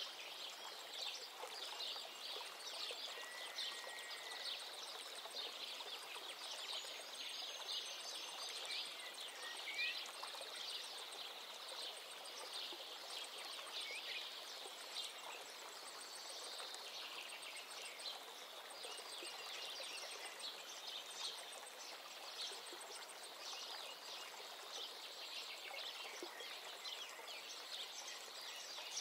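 Mutton pieces frying in hot oil in a nonstick pan: a steady, dense sizzle of many small crackles.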